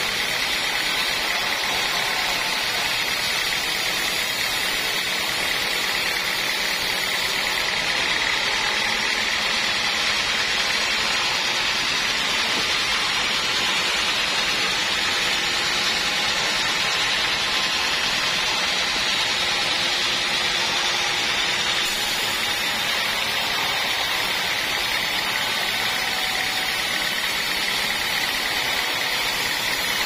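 Band sawmill running steadily, its blade sawing lengthwise through a squared teak beam with a constant high whine over a steady machine noise.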